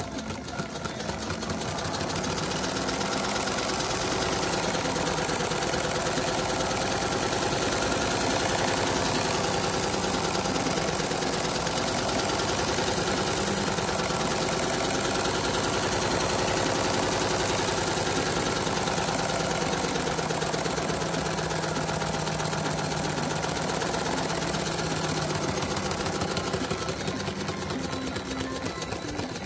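LEGO pneumatic engine running fast: its cylinder, valve and tyre flywheel make a rapid, even mechanical rattle. It builds up over the first couple of seconds, then holds a steady pace.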